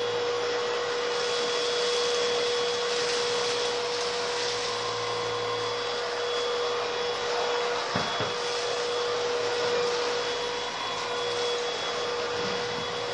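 Hoover Rhapsody RA22HCG cordless stick vacuum running steadily at maximum turbo/carpet power with its electric brush head, sucking up cereal flakes from a carpet. A steady whine sits over the rush of air.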